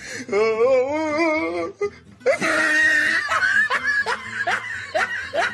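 A person laughing hard: a long wavering laugh, then from about two seconds in a loud run of repeated laughs that breaks off just after the end.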